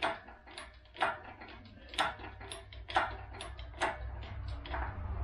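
Hydraulic engine hoist being hand-pumped to lift an engine: a sharp click with each stroke of the pump handle, about once a second, over a low hum.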